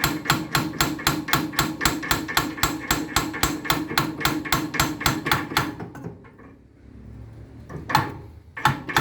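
Rapid hammer blows on the tricycle's wheel assembly during a wheel-bearing repair, about four or five a second, with a steady ring under them. The run stops about six seconds in; one more blow follows, then a fresh run near the end.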